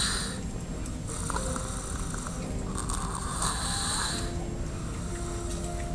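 Snoring: slow, noisy breaths that swell and fade, roughly one every three seconds.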